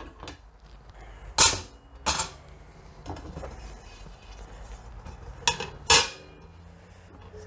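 Metal parts of a Campingaz Party Grill 400 camping stove clanking as they are handled and set onto the stove: four sharp knocks, two a little after a second in and two near the end.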